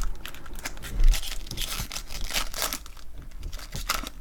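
Trading-card pack wrapper being crinkled and torn open by hand, an irregular run of crackling and rustling, with a low bump about a second in.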